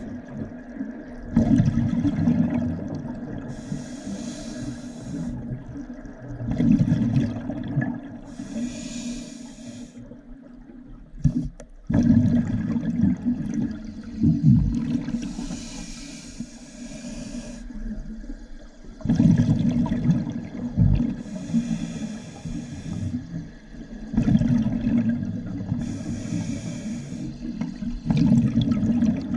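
Scuba diver breathing through a regulator underwater: a hissing inhale, then a gurgling burst of exhaust bubbles, repeated about five times, one breath every five or six seconds.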